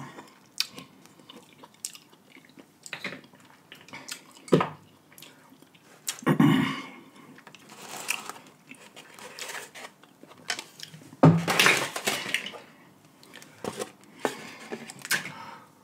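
A person eating seafood-boil crab and shrimp in sauce: wet chewing and mouth sounds, with scattered short clicks of shells and utensils on the plate and a few louder bursts.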